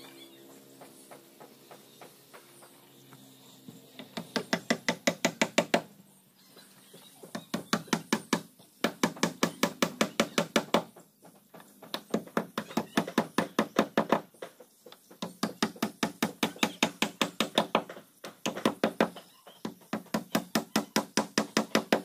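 Hammer striking rapidly on the wooden hull planking of a boat under construction, in about six runs of roughly two seconds each at about seven blows a second, with short pauses between runs.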